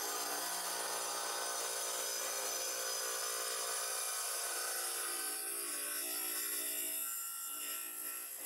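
Power saw's spinning blade grinding through a small geode held against it by hand: a steady whining grind that eases briefly near the end.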